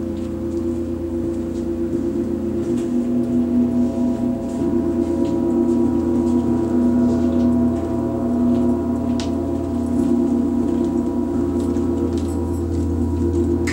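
Large Paiste gongs played in a gong bath, a deep sustained drone of several steady tones that swells gently in loudness.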